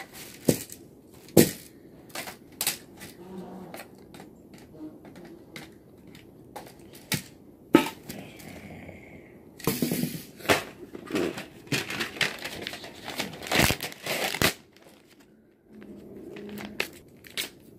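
A computer keyboard being pulled apart by hand: scattered sharp plastic clicks and snaps, then about halfway through a denser run of snapping and crinkling as its inner parts are pulled out.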